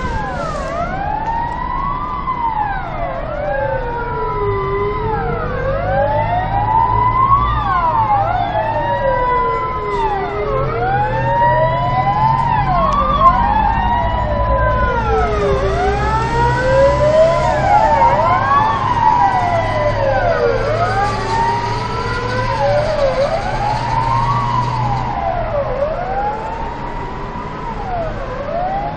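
Several fire-engine sirens wailing at once, each rising and falling slowly over a few seconds and overlapping the others, with a low rumble of truck engines under them through the middle stretch.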